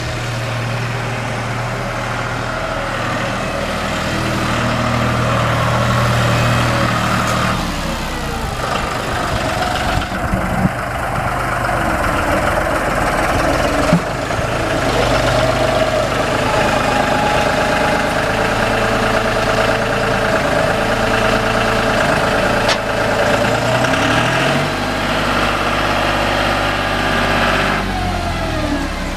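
John Deere tractor engine running while moving a log, its speed changing several times and stepping up and down near the end, with a couple of sharp knocks partway through.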